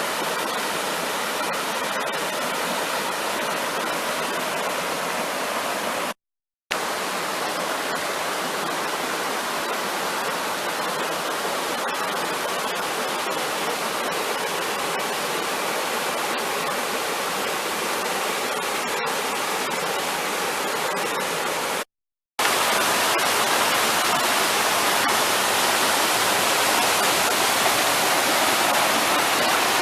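Waterfall rushing steadily, with a strong flow of snowmelt water. The sound cuts out briefly twice and is a little louder after the second break.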